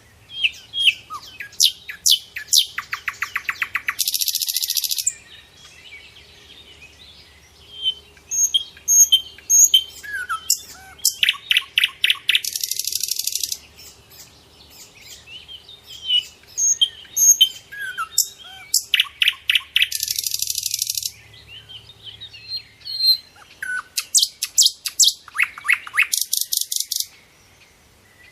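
A songbird singing the same song over and over, roughly every seven or eight seconds. Each song is a run of quick, sharp, high notes ending in a buzz about a second long, with softer chirps between songs.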